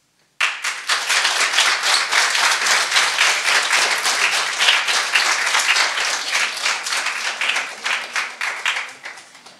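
Audience applauding, a dense crowd of hand claps that starts abruptly just after the beginning and dies away near the end.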